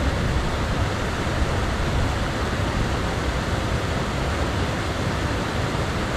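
Small creek waterfall rushing steadily into a rock pool, a constant even roar of falling water.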